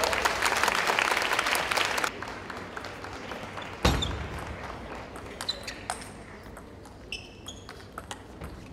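Spectators applauding in a large hall for about two seconds, then a table tennis rally: the celluloid ball clicking off the bats and table with short high pings. A single heavier thud comes about four seconds in.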